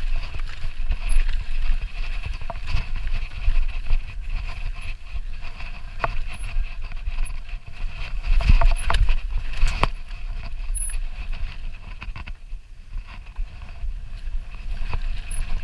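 Mountain bike coasting down a rough rocky trail with its chain off, the frame and parts rattling and knocking irregularly over the stones, under a constant low rumble of wind on the microphone.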